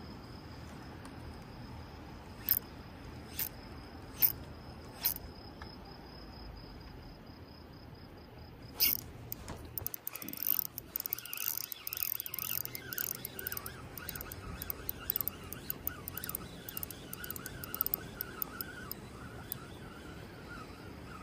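A fishing spinning reel being wound in: a dense run of quick mechanical clicking starts about nine seconds in. Before that, insects trill steadily, and a few sharp single clicks sound.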